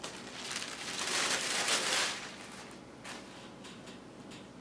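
Hands lifting the lid of a 16-inch MacBook Pro laptop: a soft rustling swell that lasts about a second and a half, then a few light clicks.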